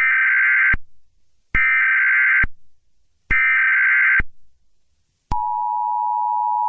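Emergency Alert System alert opening: three bursts of SAME header data tones, each just under a second long with short gaps between them. About five seconds in, the steady two-tone EAS attention signal comes on and holds.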